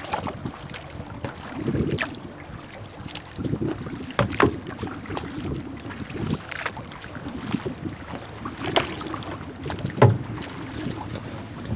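Kayak being paddled across choppy lake water: a splash from the paddle about every two seconds over steady lapping water, with wind buffeting the microphone.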